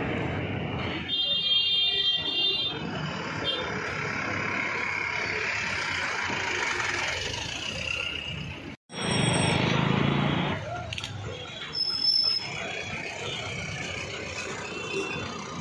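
Busy street traffic with motorbikes and auto-rickshaws running past and people chattering. A high, steady tone sounds for about a second and a half near the start. Just past halfway the sound cuts out briefly, then a louder vehicle passage follows.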